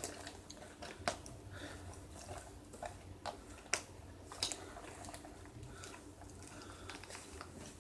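Soft rustling and scattered light clicks as the straps and buckles of a leg holster are handled and fitted.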